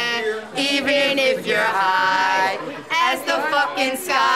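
A few people singing together close by, in long drawn-out notes.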